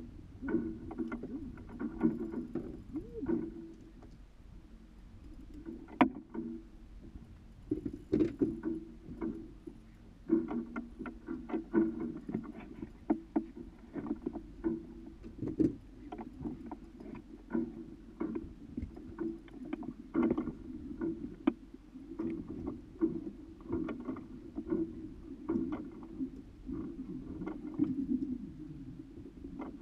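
Water lapping against the hull of a small polyethylene boat drifting at rest, with irregular knocks and clicks from the boat and fishing gear.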